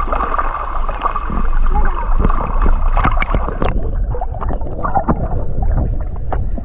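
Lake water sloshing and gurgling right at the microphone, with a heavy low rumble and scattered sharp knocks and clicks.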